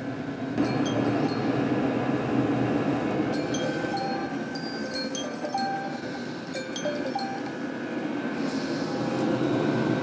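Diesel air heater running at full power: a steady rush from its burner and air fan, with scattered short high-pitched pings through the middle.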